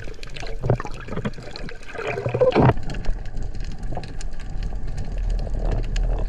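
Underwater sound of the sea picked up by the camera: muffled swishing and gushing water with scattered clicks, a couple of louder surges in the first few seconds, and a low rumble.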